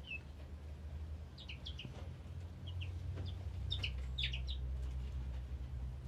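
Small songbirds in an aviary chirping: short, high chirps in quick little bunches about a second and a half in, around three seconds and around four seconds, over a steady low rumble.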